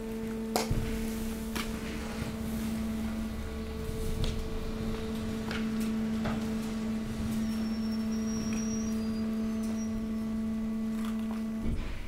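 Hydraulic waste compactor press running during compaction of mixed waste: a steady hum from its hydraulic power unit, with scattered sharp clicks and knocks from the waste bags shifting. The hum cuts off abruptly near the end.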